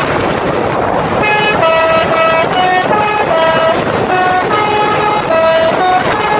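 Bus telolet horn playing a quick melody of short, changing notes, starting about a second in, over the steady noise of the passing traffic.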